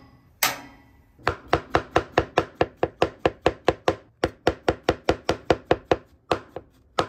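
A hammered-finish cleaver chopping button mushrooms on a cutting board: one knock, then rapid, even strokes at about five a second that pause briefly around four seconds in and slow to a few last strokes near the end.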